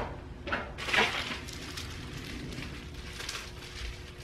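Rustling and light crinkling as nylon webbing and packaging are handled on a tabletop, louder twice about half a second and a second in, then fainter.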